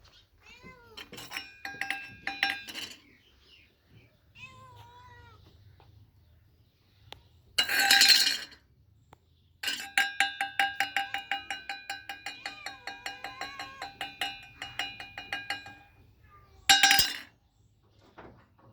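Kittens meowing in short calls that bend up and down in pitch. Between the calls comes a clinking with a ringing tone: a short run early on and a long run of about five clinks a second in the middle. Two short loud rushes of noise also sound, one about eight seconds in and one near the end.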